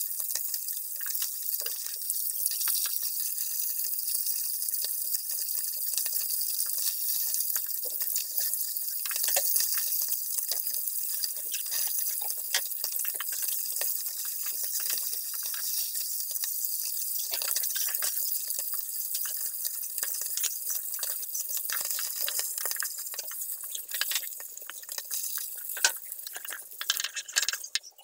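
Dhela fish pieces frying in hot oil in a nonstick pan: a steady sizzle full of crackling and popping, with a few louder clicks near the end.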